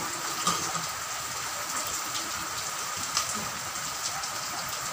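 A steady rain-like hiss with scattered faint ticks, while cooking oil is poured in a thin stream from a plastic bottle into an empty aluminium wok.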